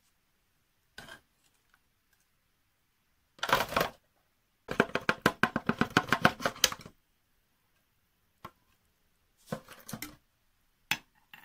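Hot boiled mushrooms and marinade poured through a funnel cut from a plastic bottle into a glass jar: short bursts of sliding, sloshing and clattering with gaps between them. The longest burst, a quick rapid rattle of about two seconds, comes roughly halfway through.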